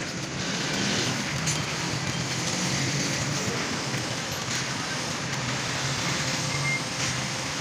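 Electric heat gun blowing steadily, warming carbon-fibre vinyl wrap, over the hum of street traffic.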